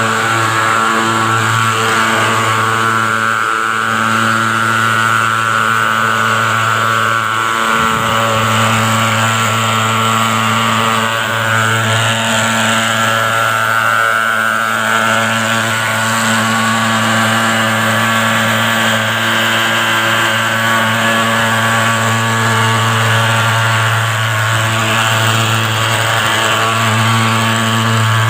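Portable pulse-jet thermal fogging machine running with a loud, steady buzzing drone as it sprays insecticide fog against mosquitoes.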